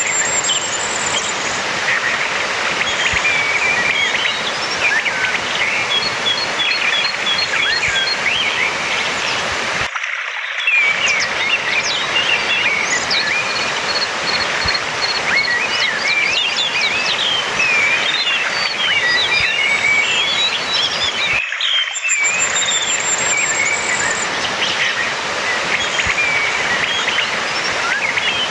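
Orange-headed thrush song: a fast, varied run of warbled whistles and chirps with short even series of pips and a high trill, over a steady background hiss. The same passage repeats about every twelve seconds, a looped lure recording used to prompt a silent caged thrush to sing.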